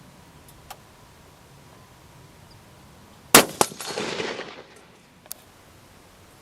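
A single shot from a Nemesis Arms Vanquish .308 bolt-action rifle about three seconds in, sharp and loud, followed by an echo rolling away over about a second. A faint click comes about two seconds later.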